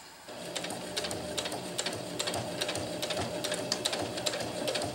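Electric home sewing machine running steadily, its needle stitching through the layers of a nylon hammock's tie-out tab, with a light, evenly repeating ticking. It starts up about a third of a second in.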